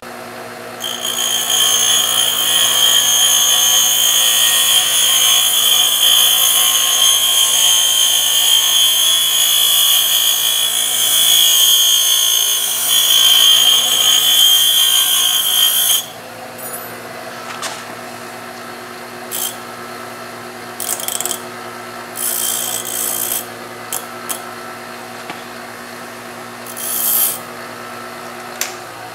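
Bench grinder running with a steady hum while an aircraft elevator hinge pin is ground through against the wheel. There is a loud, high grinding for about fifteen seconds, then several brief touches of the pin to the wheel over the grinder's hum.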